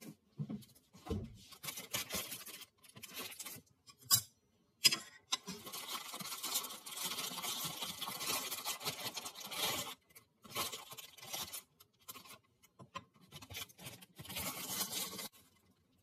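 Thin plastic bakery bag crinkling and rustling in the hands as a pastry is slid out onto a plate, in two long stretches. A couple of sharp knocks about four and five seconds in, the second the loudest sound.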